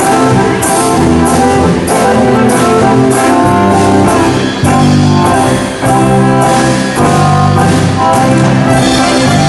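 Loud band music with a steady beat and sustained chords.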